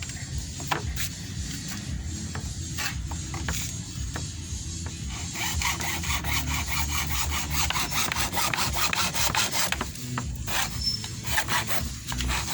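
Hand tool working the steel of a circular saw blade that is being shaped into a knife: a few scattered clicks and taps, then from about five seconds in a fast run of back-and-forth rasping strokes.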